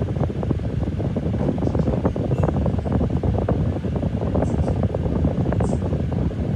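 Steady rushing, rumbling air noise, with irregular buffeting of moving air on the microphone.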